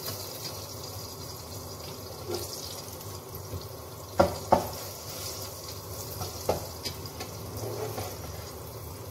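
Puri deep-frying in hot oil, a steady sizzle. Metal tongs clink sharply against the pot twice about four seconds in, with a few lighter taps later.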